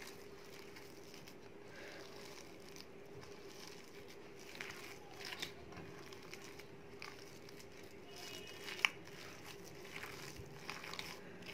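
Hands kneading and squishing a mashed potato and chana dal kabab mixture in a glass bowl: faint, with small scattered clicks and one sharper click about nine seconds in. A steady hum runs underneath.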